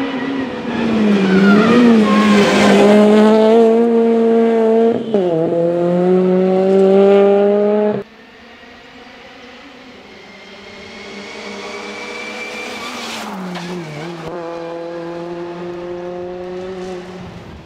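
Honda Civic FN2 rally car's engine at full throttle on a tarmac stage, revving high with an upshift about five seconds in, then cutting off abruptly. After the cut it is heard again more faintly, revs rising, then dropping sharply for a bend as the car approaches.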